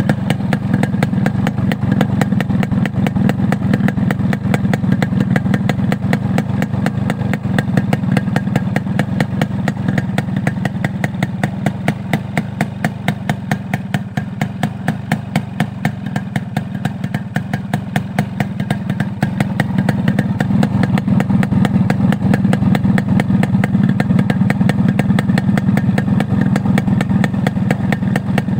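Yamaha RX115's single-cylinder two-stroke engine idling steadily at the tailpipe, the exhaust giving a rapid, even run of pulses that grows slightly louder near the end.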